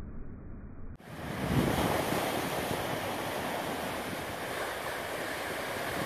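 Ocean waves breaking on a rocky shore. The surf swells to a crash about a second and a half in, then keeps up as a steady rush of foam washing over the rocks. The first second is a muffled low rumble that cuts out briefly just before the crash.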